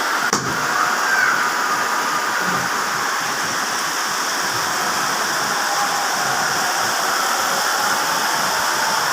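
Heavy rain falling, a steady hiss of water, with a brief click about half a second in.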